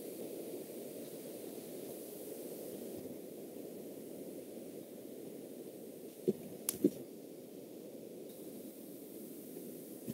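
Steady hiss and static from an open microphone on a video call, with three brief clicks about six seconds in.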